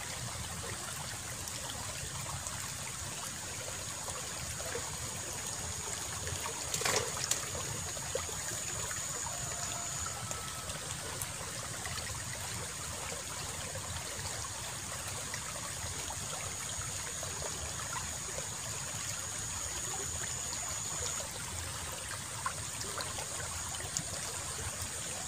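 Water of a small irrigation ditch flowing and trickling steadily, with a thin high whine that comes and goes and one brief knock about seven seconds in.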